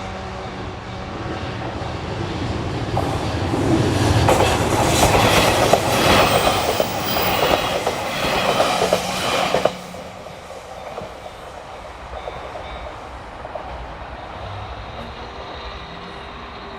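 A train passing over a level crossing. Rail and wheel noise builds over a few seconds, with wheels clicking over the rail joints, and cuts off abruptly about ten seconds in as the last car clears. The JR standard electronic crossing bell is ringing steadily under it at the start.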